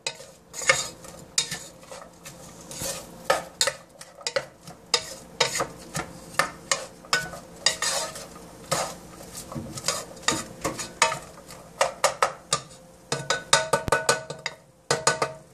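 Wooden spoon stirring diced onions in a saucepan, with many quick scrapes and knocks against the pan, while the onions sizzle in hot oil.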